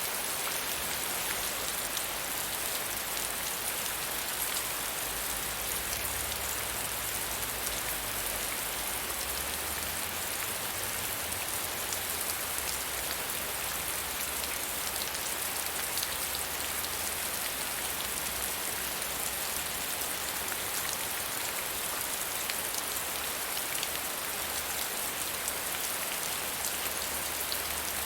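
Steady medium rainfall: a dense, even hiss of rain with fine drop patter throughout.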